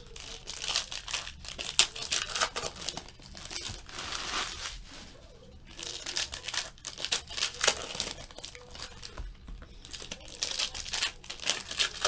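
Foil trading-card pack wrappers being torn open and crinkled by hand, in irregular crackling bursts with a couple of short lulls.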